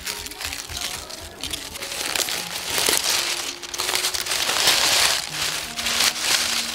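Aluminium foil crinkling and crackling as hands peel a foil-wrapped parcel open, loudest from about three to five seconds in.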